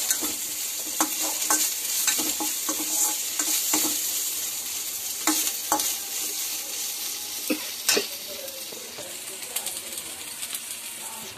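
Onions and ginger-garlic paste sizzling in oil in a steel pan while a ladle stirs them, its edge scraping and clicking against the pan. This is the stage of sautéing the paste until its raw smell cooks off. The sizzle eases off a little near the end.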